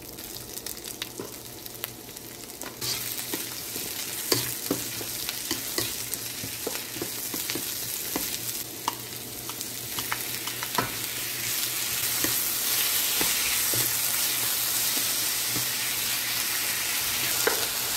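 Diced onion, carrot and, by the end, chicken pieces sizzling in oil in a nonstick wok while being stirred with a plastic spatula, with scattered scrapes and taps of the spatula against the pan. The sizzle grows louder about three seconds in and again past the middle.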